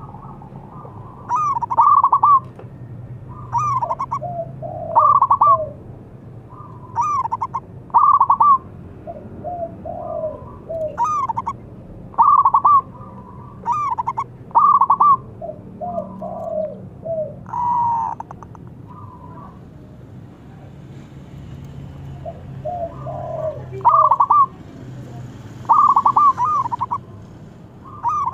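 Zebra dove (perkutut) cooing: short, rapid trilled coos repeated every second or two, higher phrases alternating with lower ones, with a lull of a few seconds past the middle.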